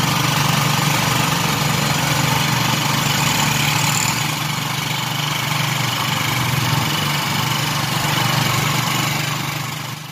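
Small engine of a motorized tricycle running steadily while riding, mixed with road and wind noise; it fades near the end.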